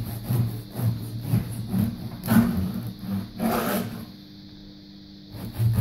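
Bread knife sawing back and forth through a sourdough loaf on a wooden cutting board: a run of rasping strokes through a crust that has mostly lost its crunch. Two longer, louder strokes come near the middle, then the sawing stops about four seconds in.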